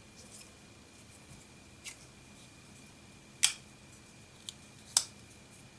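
Folding pocket knife being worked open and shut, giving sharp metallic clicks: a faint click about two seconds in, then two loud ones about a second and a half apart, with a faint tick between them.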